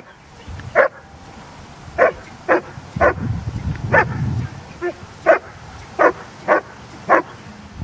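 A year-old black dog barking, short sharp single barks, about ten in all at an uneven pace of one or two a second.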